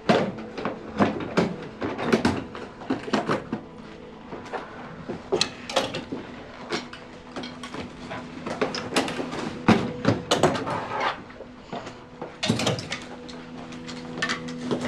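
Clothes being packed into and yanked out of a suitcase in a scuffle: a string of cloth rustles, knocks and thuds from the handling, with a heavier thud about two-thirds of the way in. Quiet background music holds steady tones underneath.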